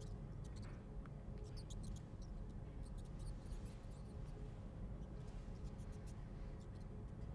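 Rat squeaking in short, high-pitched squeaks that come in several little clusters, over a low steady hum.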